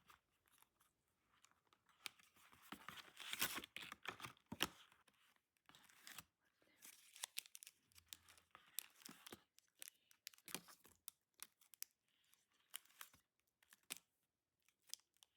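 Faint crinkling and tearing of something being handled, with scattered small clicks, busiest a couple of seconds in.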